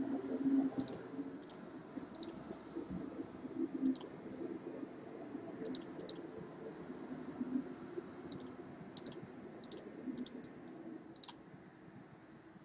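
Computer mouse clicking about a dozen times at irregular intervals, over a faint low hum.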